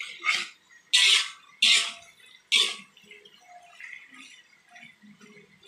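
Metal spatula scraping and tossing fried tofu cubes in an aluminium wok: four short, loud scrapes in the first three seconds, then quieter stirring.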